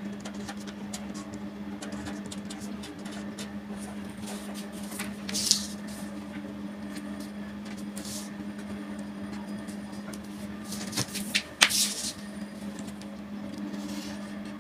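Marker pen scratching on paper and a plastic ruler being handled and set down on the paper, a longer scratch about halfway through and a cluster of sharp clicks near the end, over a steady low hum.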